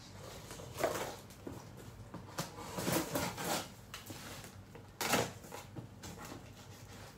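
Cardboard shipping boxes being pushed and shifted on a stack: a few irregular scrapes and dull knocks, the sharpest about five seconds in.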